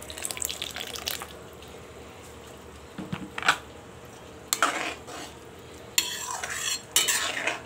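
A perforated metal skimmer spoon stirring and scraping against the side of a metal wok full of wet, simmering greens. The strokes come in bouts: about a second in, around three and four and a half seconds, and a longer stretch from about six seconds to near the end, over a faint steady simmer.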